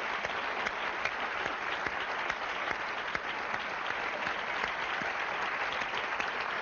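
A studio audience applauding, with steady clapping from many hands.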